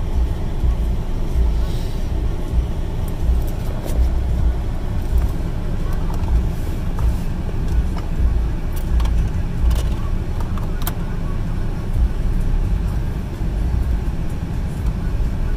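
Car engine idling, heard from inside the cabin as a steady low rumble, with a few light clicks around the middle.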